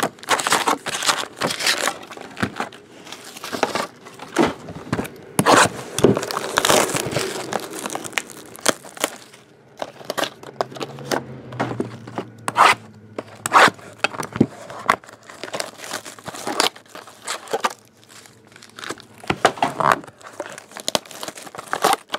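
Plastic shrink-wrap crinkling and a cardboard card box being torn open by hand, with irregular rips and rustles as the foil packs are pulled out and stacked.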